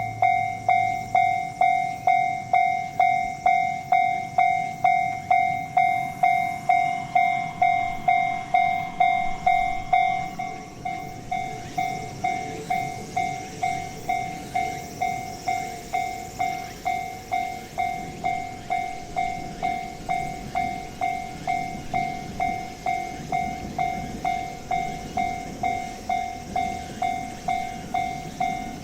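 Japanese level crossing warning bell ringing at a steady clang-clang rhythm of just under two strikes a second. About ten seconds in it becomes quieter and duller.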